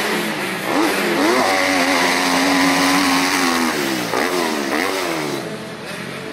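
Motocross dirt bike engine at high revs, the pitch dropping and climbing sharply about a second in and again a little past the middle as the bike goes over jumps, holding steady in between.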